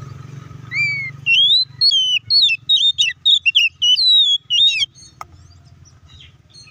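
Oriental magpie-robin (kacer) singing a loud run of whistled notes that glide up and down, lasting about four seconds. A single sharp click follows, then a few faint, soft calls.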